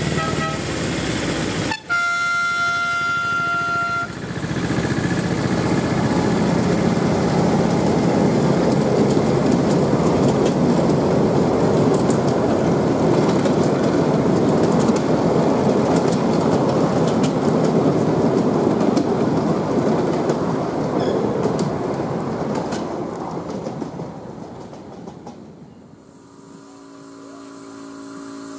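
Miniature railway diesel locomotive sounds a steady horn blast for about two seconds, then its train of passenger carriages rumbles past with wheels clicking over rail joints, fading away near the end. Just before the end a small steam tank locomotive is heard, with a steady whistle-like tone.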